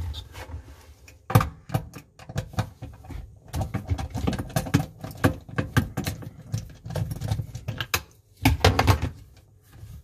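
Irregular clicks, rattles and knocks of small metal hand tools: a T15 Torx bit being fitted and a screwdriver turning out a screw from a dishwasher's plastic pump cover.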